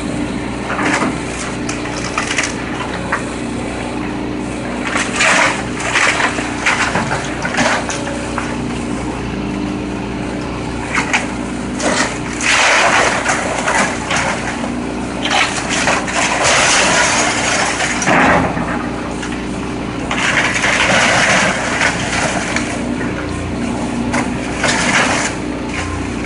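A heavy demolition machine's diesel engine runs steadily while the house's wooden frame is crushed and torn apart. Repeated cracking and crashing of breaking timber and falling debris rides over the engine, loudest about halfway through and again around three quarters through.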